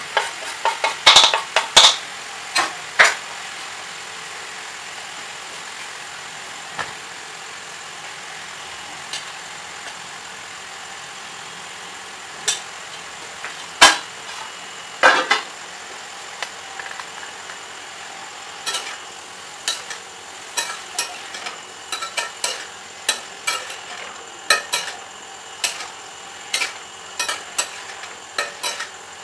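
Vegetables sizzling in a kadai while a spatula stirs them, clinking and scraping against the metal pan. The clinks come in a cluster in the first few seconds, a couple of sharp ones midway, and a quick run of them through the last third.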